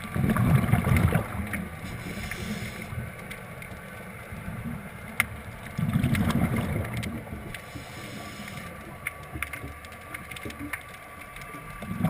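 Scuba regulator breathing heard underwater: bubbling exhalations lasting about a second and a half each, roughly every six seconds, one at the start, one about six seconds in and one at the end. Scattered sharp clicks sound through the quieter stretches between breaths.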